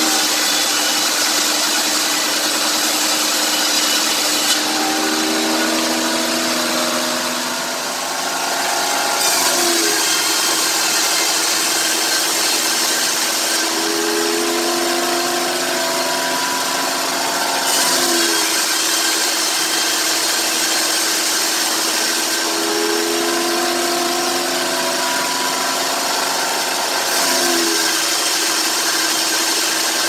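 Homemade bandsaw sawmill running at full speed, its band blade ripping lengthwise through a sengon (albizia) log to cut boards. A steady machine drone runs under the hiss of the cut, which grows stronger in several long stretches, and the drone's pitch dips briefly three times.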